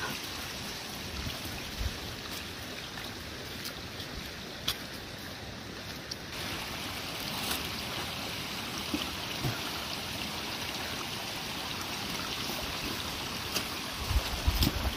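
Steady rush of running water from a small mountain stream, with a few faint clicks.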